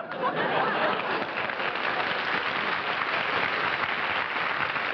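Studio audience applauding, starting sharply and holding at a steady level.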